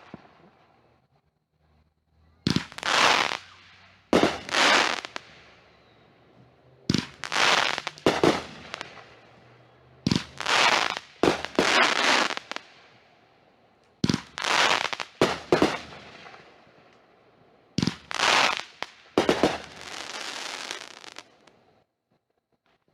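Consumer fireworks going off: about a dozen sharp bangs in quick groups of two to four every few seconds, each with a short crackling tail, and a longer crackle near the end.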